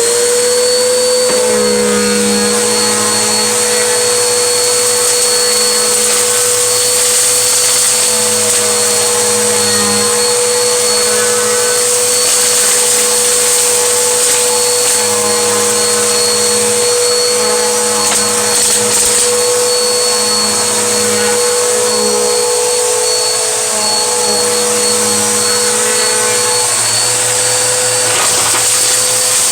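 Vacuum cleaner motor running steadily, just come up to speed, with a steady whine over a rushing hiss as it vacuums up snow salt and dirt.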